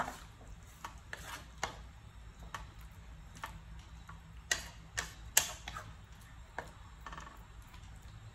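Wooden spatula knocking and scraping against a metal pan while stirring a wet mince-and-onion sauce: irregular light clicks, the loudest three a little past the middle.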